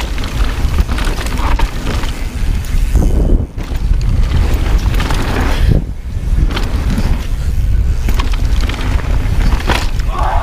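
Wind buffeting the camera microphone along with the rumble and rattle of a mountain bike riding fast down a dirt trail. The noise is loud and steady, broken by brief drops around three and a half and six seconds in.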